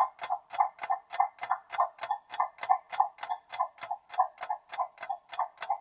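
Quiz countdown-timer sound effect: a clock ticking steadily at about three ticks a second while the on-screen timer runs down.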